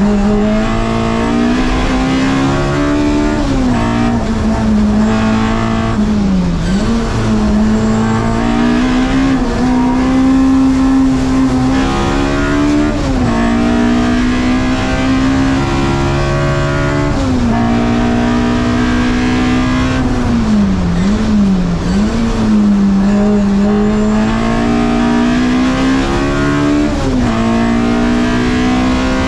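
Opel Kadett C GT/E hillclimb race car's engine at high revs under hard acceleration, heard from inside the stripped cabin. The note climbs steadily and dips briefly and recovers several times through gear changes and corners.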